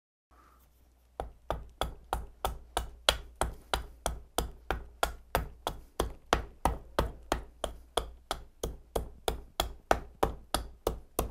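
Hatchet chopping into a wooden spoon blank: quick, even strikes, about three a second, starting about a second in.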